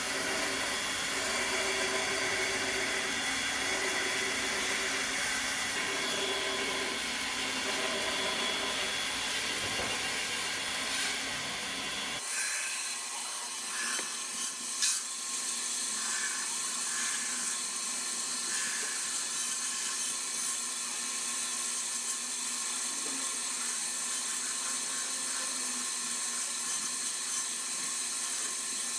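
Electric drill running steadily as the drive of a homemade wood lathe, with a high whine and the hiss of wood being turned. About twelve seconds in, the sound changes abruptly and the low rumble drops away.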